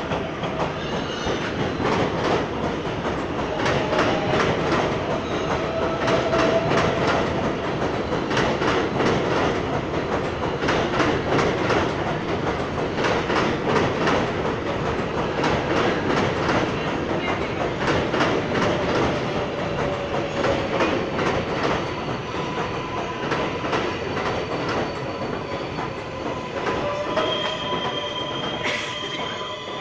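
An R188 subway train on the New York City Subway's 7 line runs alongside the platform with loud wheel clatter, rapid clicks over the rail joints and some wheel squeal. Near the end the clatter eases a little and steady whining tones come in.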